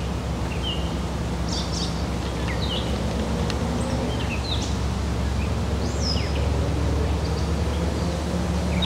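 Steady low hum of an idling diesel passenger train, with birds chirping here and there over it.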